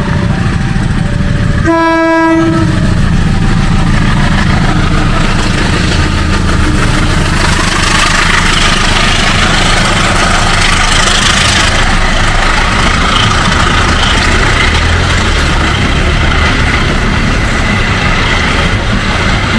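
A level-crossing warning signal sounds in two alternating tones while a diesel-electric locomotive gives one short horn blast about two seconds in. The locomotive's engine runs heavily underneath, and from about eight seconds in the train is passing close, its wheels clattering over the rails.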